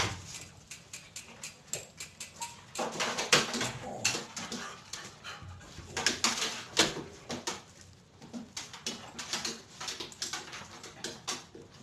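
A dog whimpering softly amid a run of short, irregular scuffs and clicks.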